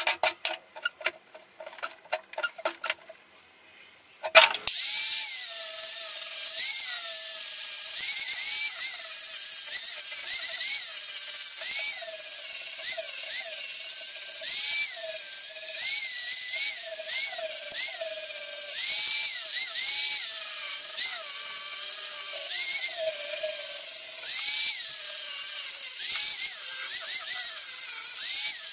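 Angle grinder with a sanding disc shaping a wooden axe handle. It starts about four seconds in after a few seconds of light scraping, then runs with a steady whine whose pitch keeps dipping and recovering as the disc is pressed into the wood and eased off.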